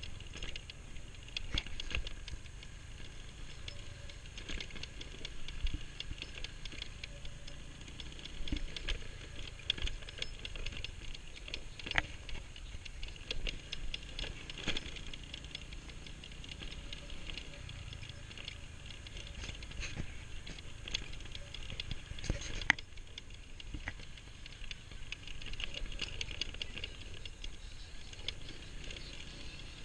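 Irregular rattling and knocking from a motor scooter and its mounted camera jolting over a rough dirt road, over a steady low rumble. The sharpest knock comes about 23 seconds in.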